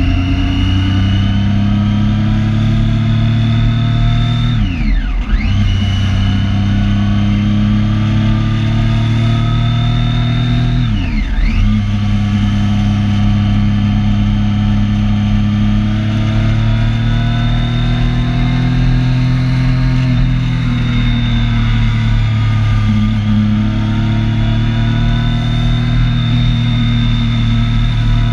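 Triumph Street Triple 675's inline three-cylinder engine running at steady revs while riding at low speed. Twice, about five and eleven seconds in, the revs dip sharply and come straight back up.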